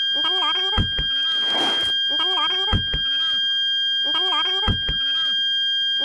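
Toyota Calya/Sigra parking sensor buzzer sounding one unbroken steady tone, the continuous signal that marks an obstacle at the closest range. Over it, a short wavering sound and a pair of low thumps repeat about every two seconds.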